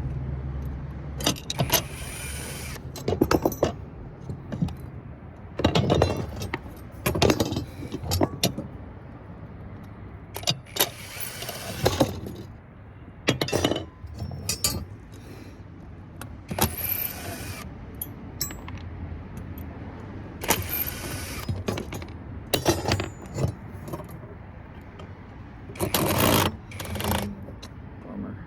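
Power drill-driver run in short, irregular bursts to back out brass screws, with metal clinking in between. The worn screw heads are stripping under the bit.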